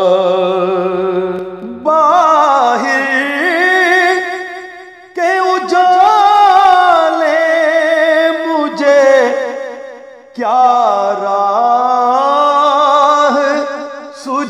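Slowed-and-reverb naat: a voice chanting long, wavering held phrases between the verses, in four phrases that break briefly about 2, 5 and 10 seconds in.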